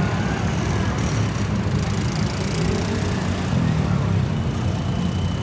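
A bus engine running close by, a steady low rumble with road noise.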